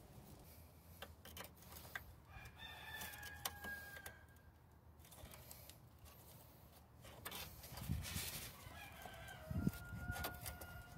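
A rooster crowing twice, each crow long and faint. Scattered sharp clicks and a few knocks come from a screwdriver working the brake-hose retaining clip out of the strut bracket.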